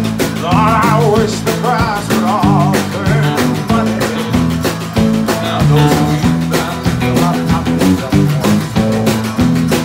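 Live country-rock band playing: electric guitar and bass over drums keeping a steady beat, with a man singing a wavering melody line.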